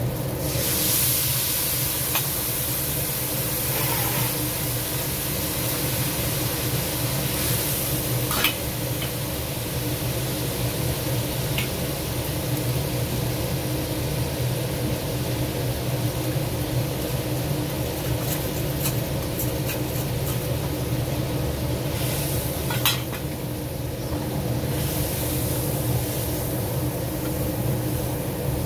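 Garlic, chilies and shrimp sizzling in a hot nonstick wok as a reddish sauce is poured in, the sizzle flaring louder about a second in and again around 22 seconds, with a few clicks of utensils against the pan. A steady low hum runs underneath.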